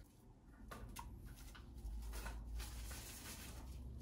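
Quiet room tone with a low hum and a few faint, soft handling noises from gloved hands working ground meat mixture in a bowl.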